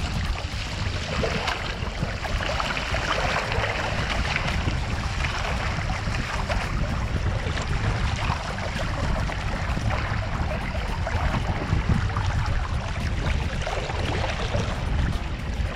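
Water splashing and rushing along a plastic sit-on-top kayak's hull as it is paddled, with the paddle blades dipping and throwing spray. A steady low rumble of wind on the microphone runs underneath.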